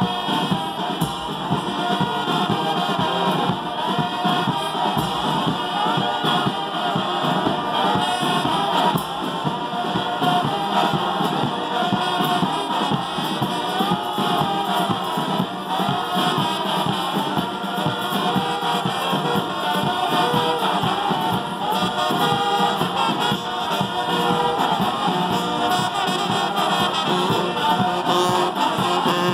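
Brass band music with singing.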